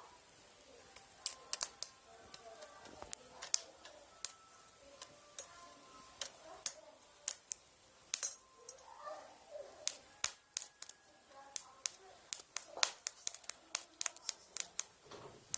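Irregular sharp snapping clicks, a few to several a second, coming faster in the second half: the sparks of a homemade spot welder powered from an adapter as its electrodes touch metal.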